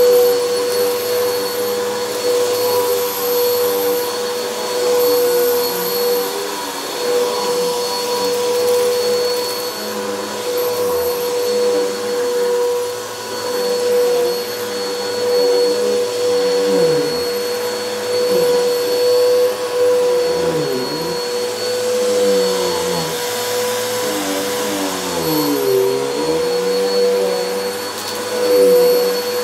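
Helix Turbo upright vacuum running on carpet with a steady motor whine, its sound swelling and dipping as it is pushed back and forth.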